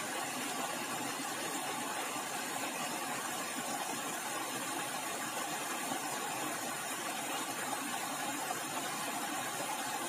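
Shallow stream water running over rocks, a steady even rushing.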